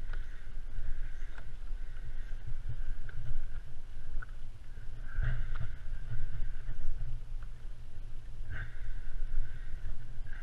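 Wind buffeting the microphone over water slapping against a plastic sit-on-top kayak hull, an uneven low rumble, with a faint steady high whine above it.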